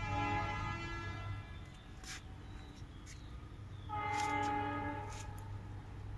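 A horn sounding long, steady held blasts: one fades out about a second and a half in, another sounds from about four seconds to five and a half. A steady low hum runs underneath.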